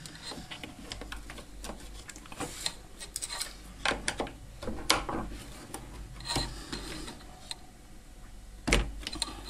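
Hands working a dishwasher's door hinge mechanism, unhooking a steel bicycle-brake cable from its plastic hinge parts and spring: scattered small clicks, rattles and rubbing, with a louder knock near the end.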